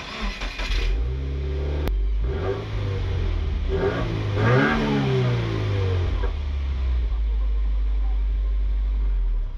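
Subaru WRX's turbocharged flat-four through its stock exhaust with the factory mufflers still on. It is revved twice, the second rev higher, rising and falling, then settles into a steady low idle.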